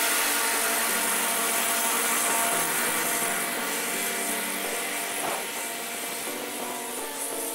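Scag Tiger Cub zero-turn mower running steadily while mowing, its engine and blade noise growing fainter as it drives away.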